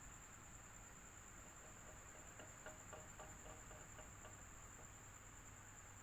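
Electric fan running faintly and steadily, with a constant high whine over the airflow. About two seconds in comes a short run of soft quick ticks, roughly five a second, lasting a couple of seconds.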